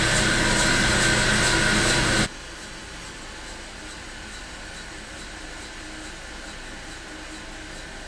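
Large bandsaw sawmill running loud and steady through an Osage orange log, an even whir with a high whine. About two seconds in it drops abruptly to a much quieter steady machine hum.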